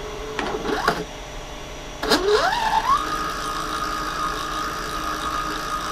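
NEMA 23 stepper motor driving the mill's Y-axis handwheel through a #25 roller chain and sprocket. About two seconds in it starts up with a whine that rises in pitch for about a second, then holds a steady high whine as it runs at speed.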